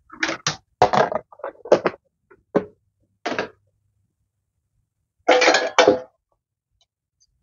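Dishes and plastic containers clattering and knocking as they are lifted out of a wire dish rack and set down, in about six short bursts of clinks and knocks. The loudest, longest clatter comes about five and a half seconds in.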